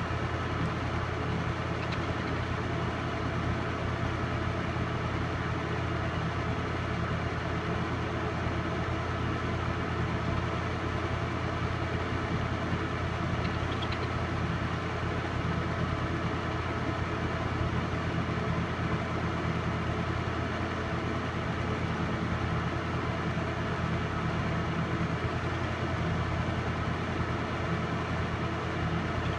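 Film projector running with a steady mechanical hum, unchanging throughout.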